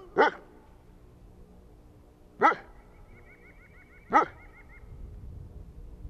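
A dog barking three times, single loud barks spaced about two seconds apart.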